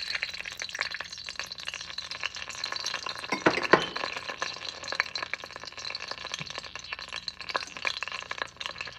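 Cooking oil heating in an enamelled pot, sizzling with a steady hiss and scattered crackles and pops, with a louder cluster of pops about three and a half seconds in.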